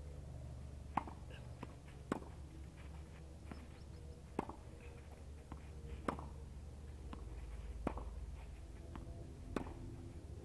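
Tennis balls struck by rackets in a rally: six sharp pops roughly one and a half to two seconds apart, with fainter ticks between them.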